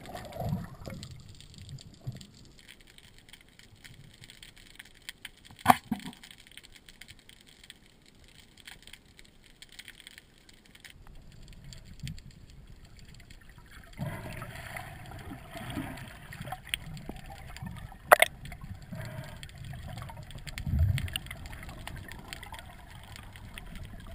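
Underwater water noise with bubbling, broken by two sharp clicks, one about six seconds in and a louder one about eighteen seconds in. The water noise grows busier in the second half.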